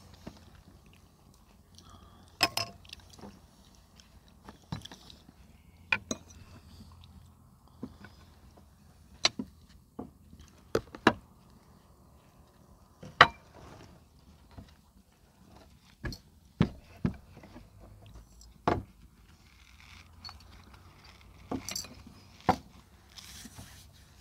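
Cutlery and dishes clinking during a meal: sharp, irregular clinks every second or two, the loudest about halfway through, over a faint steady low hum.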